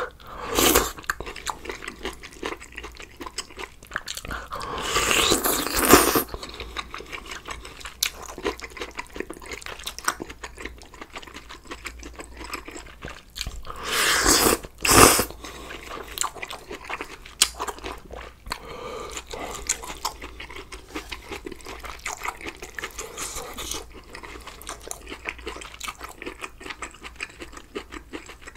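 A person eating close to the microphone: wet chewing and crunching of stew, noodles and kimchi, with many small clicks. Two louder stretches of a second or two stand out, about five and fourteen seconds in.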